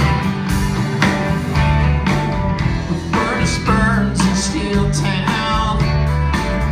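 Country band playing live, with guitars over a steady bass and drum beat, at a sound check; a sung vocal line comes in about three seconds in.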